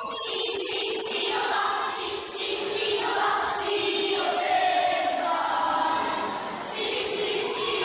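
A group of schoolchildren's voices singing or chanting in unison as a speech choir, in drawn-out phrases with long held notes.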